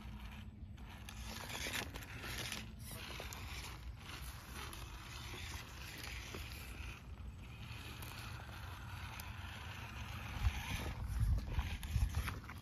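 Axial Capra RC rock crawler's electric motor and geared drivetrain running as it crawls slowly over boulders, with tyres scraping and bumping on the stone. Louder low rumbling bumps come in near the end.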